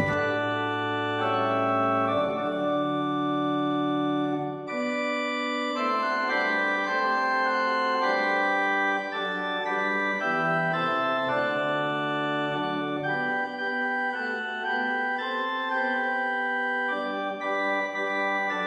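Instrumental music on an electronic organ-style keyboard: held chords under a simple melody, the notes changing about once a second, with no singing.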